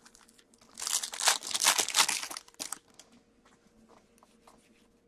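Foil wrapper of a hockey card pack being torn open, crinkling for about two seconds, then a few faint ticks.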